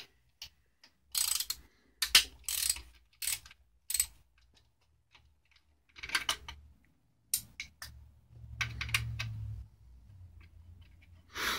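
Socket ratchet fitted with a 6mm Allen bit clicking in short, irregular runs as it backs out the bolts holding the turbo heat shield on a VW 1.8T engine. A low hum comes in for a second or two near the end.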